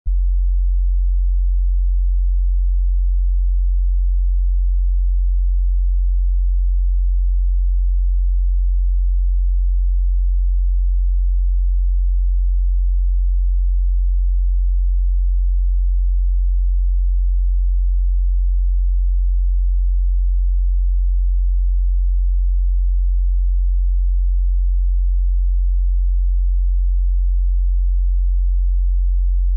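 A steady, unbroken 45 Hz sine-wave test tone: a single very deep pure hum at constant loudness.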